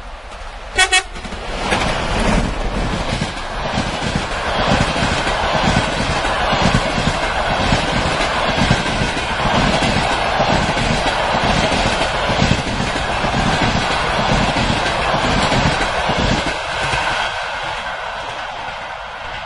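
A TEP70 diesel passenger locomotive sounds two short toots on its horn about a second in, a greeting to the person at the trackside. Then the locomotive and its passenger coaches pass close by, the wheels clattering rhythmically over the rail joints. The sound fades over the last few seconds as the train moves away.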